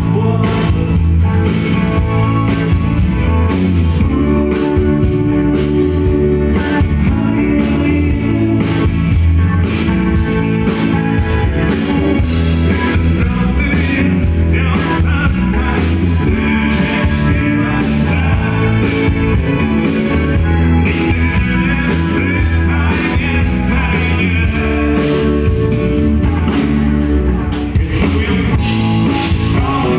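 Live rock band playing: electric guitars, keyboard, bass and drums, with a steady drum beat.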